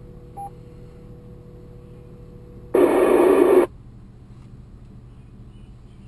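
Amateur two-way radio speaker between transmissions on a storm-spotter net: a short beep just after the start, then almost a second of loud static hiss about three seconds in, cutting off suddenly, the squelch tail of a transmission dropping.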